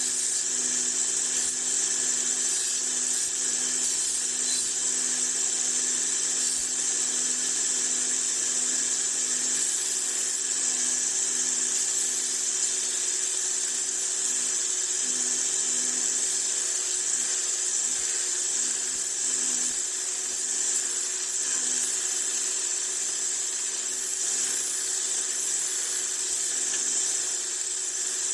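Small electric motor running steadily with a high-pitched whine and no change in speed.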